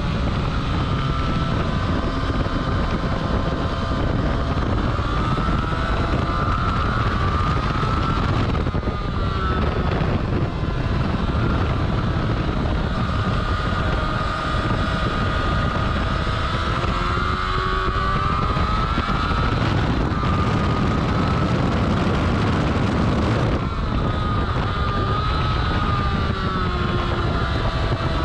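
Yamaha R6 sport bike's inline-four engine at speed on track, its pitch rising and falling as the throttle is opened and closed through corners, with heavy wind rush on the microphone. The engine note drops briefly about a third of the way in and again about four-fifths in.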